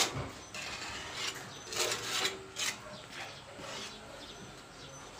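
Body filler being spread with a hand spreader: the blade scrapes and smears the paste over sheet metal in several irregular rasping strokes, with a sharp knock at the very start.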